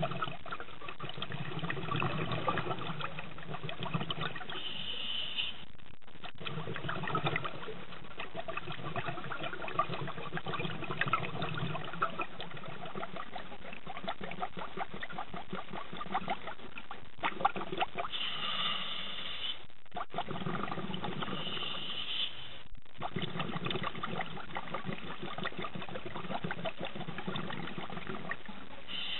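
Scuba regulator breathing, heard underwater: a brief high hiss on each breath in, then a longer rumbling, crackling run of exhaust bubbles on each breath out, repeating in slow cycles.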